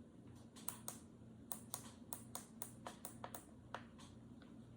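Buttons on a Bluetooth speaker alarm clock clicking in a quick, uneven run of a dozen or so presses, stepping the hour setting forward.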